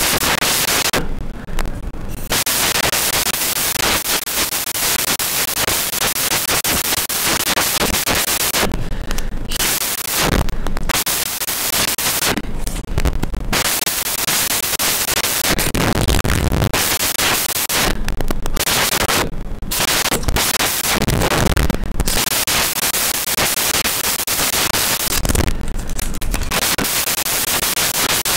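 Loud, continuous crackling static-like noise that thins out briefly several times.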